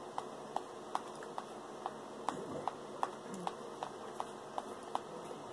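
Light, sharp ticks at a very even pace, about two and a half a second, over low room noise.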